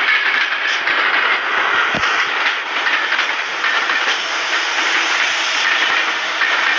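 Train running on the rails: a loud, steady rushing of wheels on track, with a single short knock about two seconds in.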